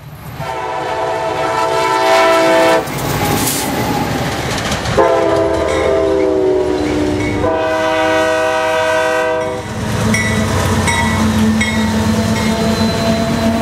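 Diesel locomotive air horns sounding three long multi-note blasts, the second sliding down in pitch as the locomotive passes. After that, diesel locomotives rumble past with wheels clacking on the rails while a grade-crossing bell dings about every 0.7 seconds.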